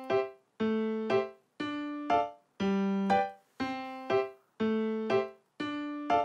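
Background music played on a keyboard: a repeating two-note figure, a longer lower note followed by a short higher one, about once a second.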